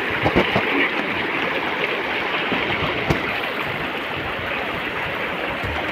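Mountain stream rushing over rocks: a steady wash of flowing water, with a few light clicks.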